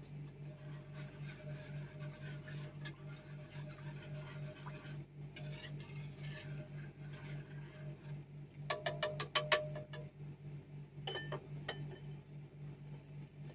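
A whisk stirring a thin coconut-milk and cornstarch batter in a nonstick pan on a gas burner: soft scraping and swishing, with a quick run of clicks as the utensil knocks against the pan a little under nine seconds in and a few more about two seconds later. A steady low hum runs underneath.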